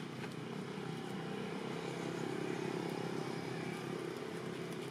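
A motor vehicle's engine running, a steady low rumble that swells about halfway through and then eases off, as a vehicle passing by would.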